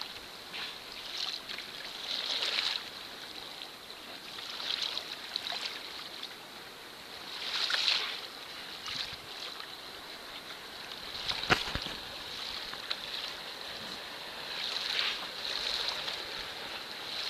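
Water lapping and splashing against the hull of a Hobie Mirage Outback pedal kayak, coming in washes every second or two, with one sharp knock about eleven seconds in.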